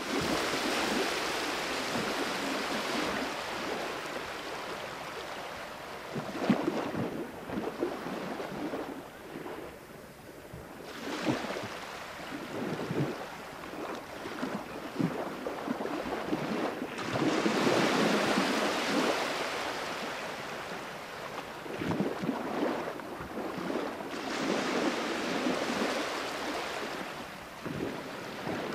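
Wind buffeting the microphone: a rushing noise that swells and fades in gusts every several seconds, with a few low knocks.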